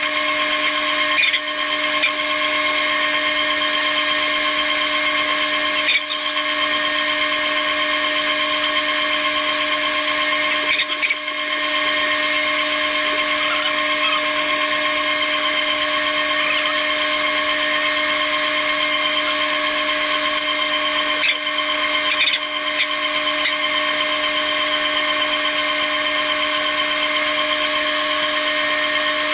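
Metal lathe turning a grade 5 titanium bar under coolant. The sound is a steady high-pitched whine of several tones, with brief breaks about 1, 6, 11 and 22 seconds in.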